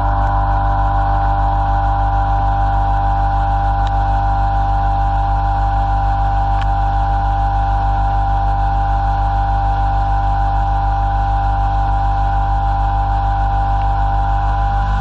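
CNC machining centre roughing a pocket in metal with a solid-carbide end mill: a steady, multi-toned cutting whine with a fast, even pulsing as the cutter teeth engage.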